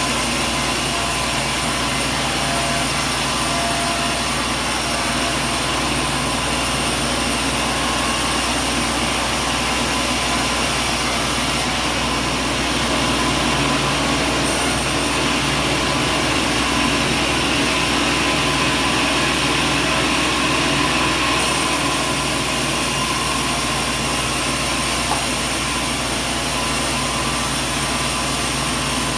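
Sawmill machinery running steadily: a loud, continuous mechanical drone with a whine of several steady tones, swelling slightly in the middle.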